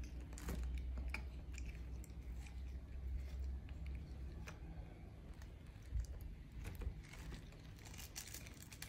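Plastic bag crinkling and rustling in scattered short crackles as a hand handles cut watermelon pieces inside it.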